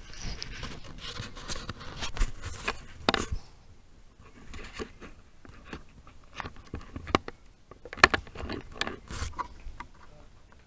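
Baboon mouthing, licking and handling a trail camera right against its microphone: irregular scrapes, rubbing and sharp clicks and knocks on the camera housing. The noise comes in two busy spells, about one to three seconds in and again about seven to nine seconds in.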